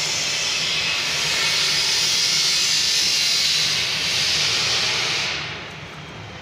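A loud, steady hiss of rushing air that drops away sharply about five seconds in.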